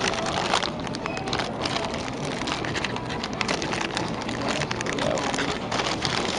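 Plastic toy packaging crinkling and rustling with many small crackles as it is worked open by hand.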